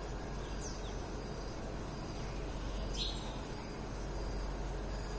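Steady outdoor background noise with a low rumble, and a few brief high bird chirps, one about half a second in and another about three seconds in.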